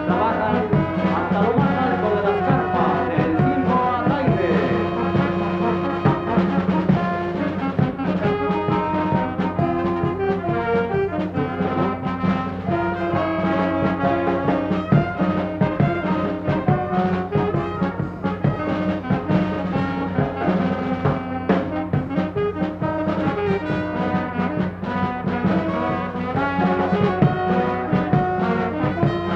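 Circus band music led by brass, trombones and trumpets, playing continuously.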